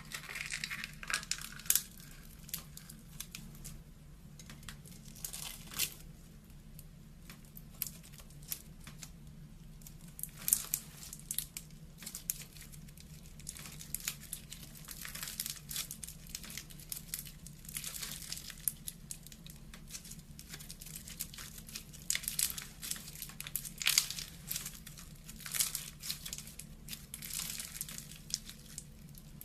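Slime being worked by hand, giving irregular sticky crackling, in clusters of clicks and pops that come and go.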